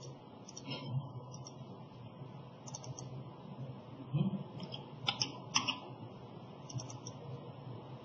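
Keystrokes on a computer keyboard and mouse clicks, coming in a few short clusters over a faint steady background hum.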